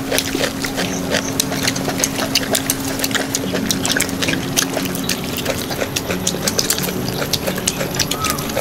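Beef soup bubbling in a cooking pot, with dense irregular crackling over a steady low hum.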